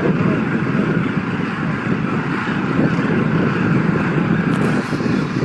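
Steady wind buffeting the microphone, a dense low rumble that doesn't let up.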